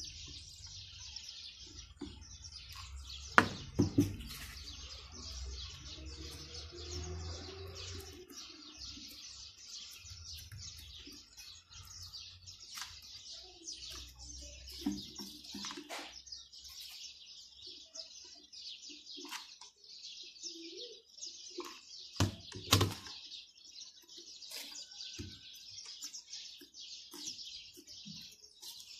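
Small birds chirping rapidly and without a break, with a few sharp knocks of the tin and glue gun being handled, the loudest about four seconds in and again about three-quarters of the way through.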